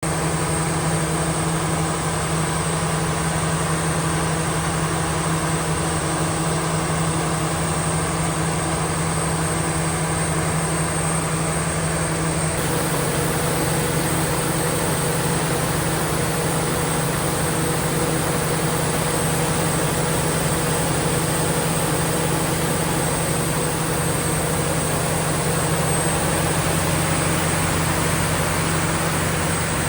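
Caterpillar C27 V12 diesel engine of an 800 kW generator set running steadily during a load test: an even, continuous engine drone with a low hum and a high whine over it. The sound shifts slightly about twelve seconds in.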